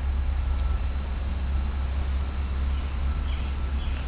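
Van Norman #555 horizontal surface grinder running: a steady low hum with a faint, steady high whine over it.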